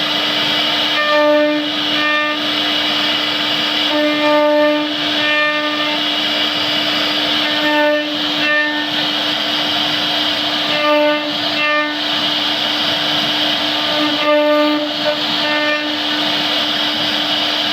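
Wood CNC router running with a steady, high spindle whine. Short pitched tones come over it in pairs about every three seconds.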